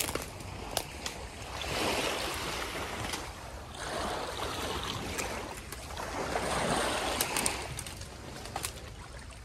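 Water rushing and splashing in three swells a couple of seconds apart, with scattered small clicks and knocks.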